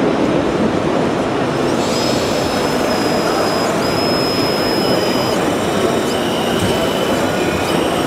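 Thin high whine of a radio-controlled model truck crane's electric drive motors, starting about two seconds in and cutting off and restarting several times, with a second lower whine joining about halfway through, over the steady loud din of a busy exhibition hall.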